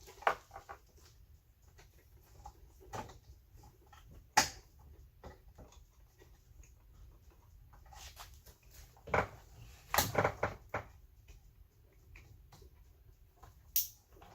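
Plastic rear bumper cover being handled and pushed onto its mounting tabs and clips: scattered clicks and knocks, the sharpest about four seconds in and a cluster around ten seconds.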